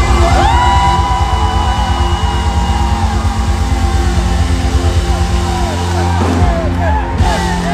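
Live gospel band playing loudly with heavy bass while a singer slides up into one long high held note that ends about three seconds in, followed by shorter sliding vocal calls over the band.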